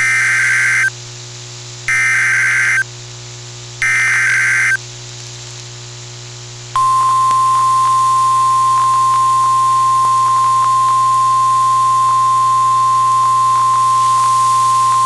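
NOAA Weather Radio Emergency Alert System activation: three short bursts of SAME header data, a screeching digital warble, about a second apart, then after a pause of about two seconds the steady 1050 Hz warning alarm tone, held to the end. It signals that a warning message follows. A low radio hum runs underneath.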